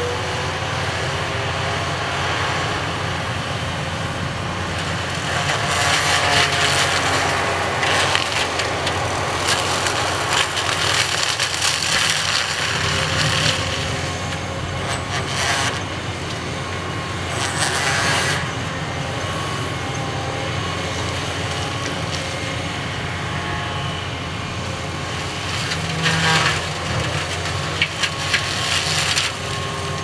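Excavator-mounted saw cutting through cedar trunks at ground level, with crackling, splintering wood noise in several bursts. The Cat excavator's diesel engine drones steadily underneath.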